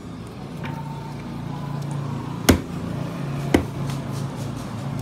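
A large knife chopping down through bony fish chunks on a cutting board: two hard chops about a second apart, the first the louder, over a steady low hum.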